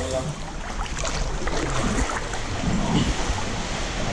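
Seawater lapping and sloshing against rock inside a sea cave, close to a microphone held at the water surface, with uneven swells of splashing about halfway through.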